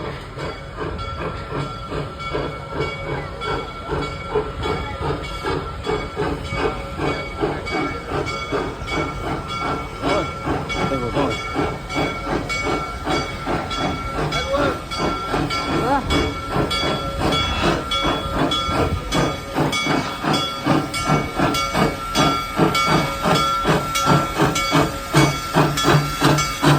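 Serengeti Express steam locomotive #601, fired on vegetable oil, passing with a fast, regular beat of exhaust and running gear over a steady steam hiss. The beat grows louder near the end.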